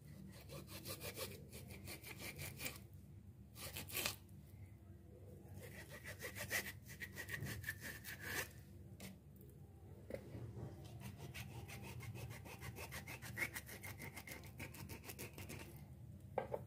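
Kitchen knife sawing back and forth through raw scaled fish skin and flesh to score cuts, making quick repeated rasping strokes with a few sharper clicks.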